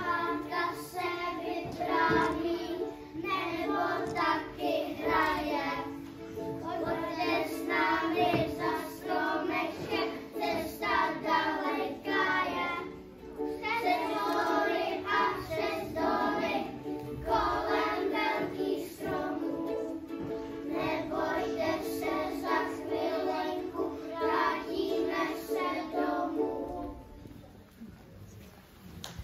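A group of young children singing a song together to electric piano accompaniment; the song ends shortly before the close.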